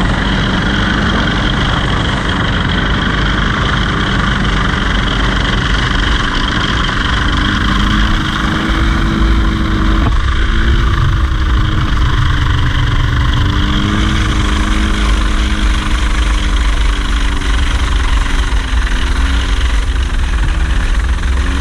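Small propeller aircraft's engine running steadily, a loud roar with a hum that wavers slightly in pitch and shifts about ten seconds in.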